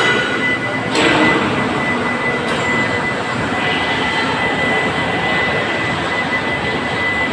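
Steady, loud machinery noise of an ice plant with a constant high whine, and a sharp knock about a second in.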